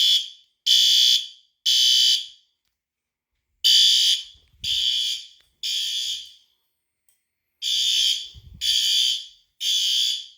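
System Sensor P2RL fire alarm horn sounding the temporal-three evacuation pattern: three short buzzy blasts about a second apart, a pause, then the group repeats three times. The system is in alarm after a smoke detector was set off with test smoke.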